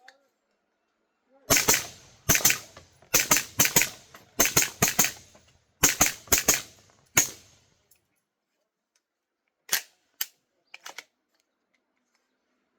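Suppressed Extar 9mm pistol firing through a SilencerCo Banish 45 suppressor: about a dozen shots in quick strings of two or three over about six seconds. A few fainter clicks follow a couple of seconds later.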